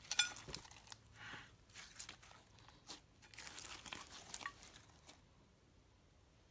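Clear slime loaded with foam beads and tinsel being squeezed and stretched by hand, giving irregular sticky crackles, crunches and clicks. The handling stops about five seconds in.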